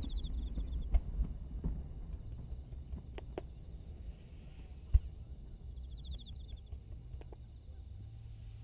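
Crickets chirping steadily against distant fireworks. A low rumble fades over the first two seconds, a few faint pops follow, and one sharp thump lands about five seconds in.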